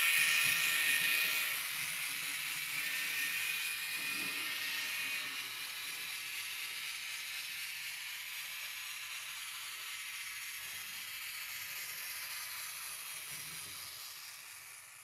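A steady hiss that starts suddenly, is loudest at first and slowly fades away near the end.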